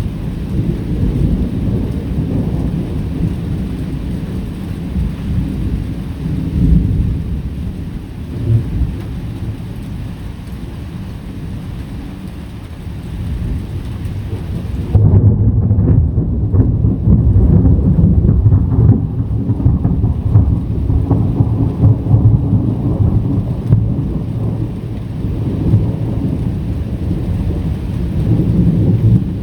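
Thunder rumbling over steady rain. About halfway through the rumble grows louder and heavier, and the hiss above it drops away suddenly.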